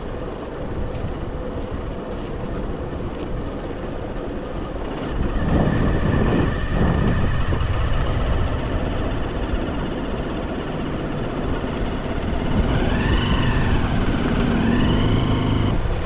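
Motorcycle engine running on the move, under heavy wind rush on the microphone; the sound grows louder about five seconds in. Near the end a whining tone rises and falls twice.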